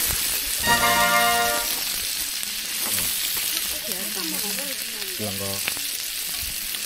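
Food sizzling in a hot pan, a steady hiss, with background music.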